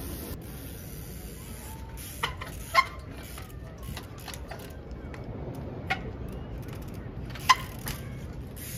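Steady outdoor background noise with several sharp knocks, the loudest about three seconds in and again near the end.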